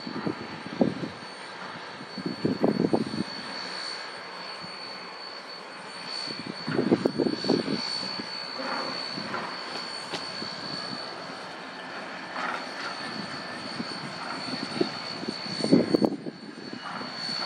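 D&SNG 493, a K-37 class 2-8-2 narrow-gauge steam locomotive, working slowly with a freight train, its exhaust chuffing in irregular loud bunches over a steady rumble. A thin, steady high-pitched whine runs underneath.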